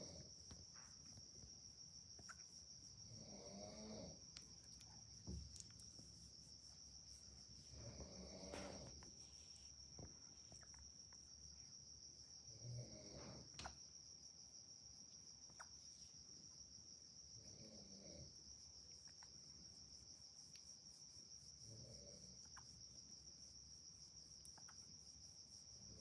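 Near silence with a steady, high-pitched chirring of crickets, and a soft, short low sound about every four to five seconds.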